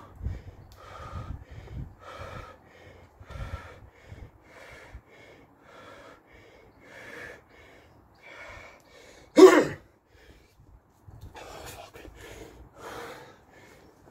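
A man breathing hard and gasping, one heavy breath about every second, out of breath straight after an exhausting set of burpees and jump squats. About two-thirds of the way through comes one much louder, sharp blast of breath.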